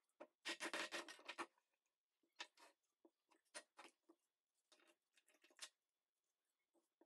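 Knife blade scraping and shaving a stick of fatwood (resin-rich pine): a quick run of scraping strokes about half a second to a second and a half in, then shorter single scrapes roughly every second. Faint overall.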